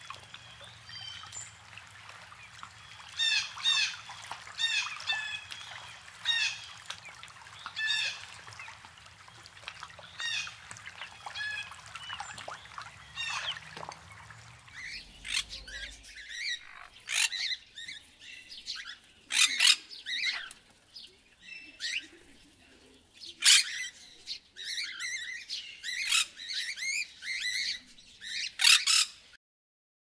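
Birds calling: a run of short, repeated chirping notes, then, from about halfway, loud harsh squawks in quick succession, typical of a macaw.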